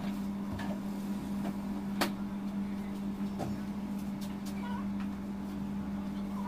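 A steady low hum runs throughout. A sharp click comes about two seconds in, and a fainter knock follows about a second and a half later.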